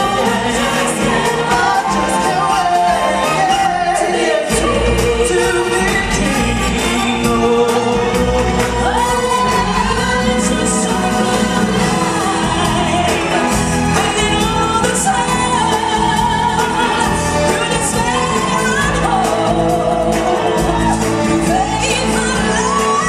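Amplified live show music: several singers on handheld microphones sing a lively song together over the musical backing. A deep bass part comes in about four and a half seconds in.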